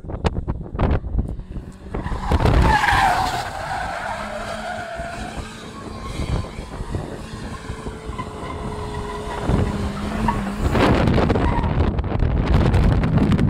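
Car, a 1994 Toyota Corolla, skidding past with its tyres squealing, a wavering squeal a few seconds in, then louder engine and tyre noise near the end. Wind buffets the microphone at the start.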